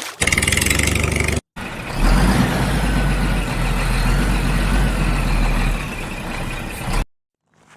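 Vehicle engine running, in edited segments that cut off abruptly: a short steady stretch, a brief gap, then about five seconds of low rumble, ending in a sudden cut to silence.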